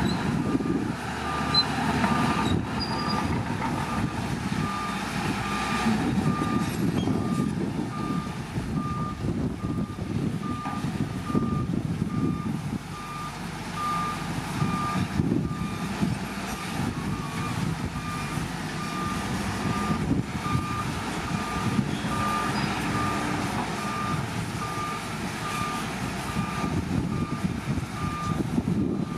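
Reversing alarm on heavy earthmoving equipment beeping steadily, about twice a second, over the rumble of a large diesel engine working.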